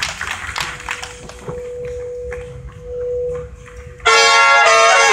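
Scattered applause dying away, then a single steady note held for a few seconds, swelling twice. About four seconds in, a big-band brass section comes in loudly together with the opening chords of a jazz piece.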